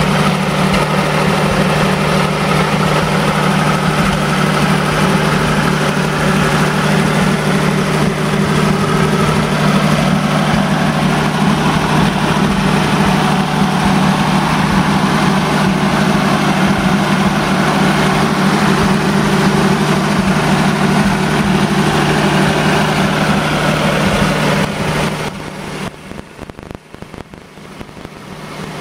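Ford six-cylinder flathead truck engine in a Funk-converted 1952 Ford tractor idling steadily with a low, even hum. About 25 seconds in the sound drops abruptly to much quieter.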